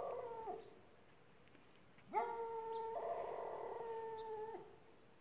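A distant dog howling: the tail of one howl fades out about half a second in, then a second long howl slides up and holds steady for about two and a half seconds.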